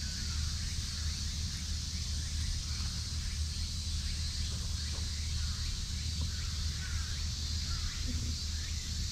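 Outdoor ambience: small birds chirp again and again in short calls over a steady high hiss and a low rumble.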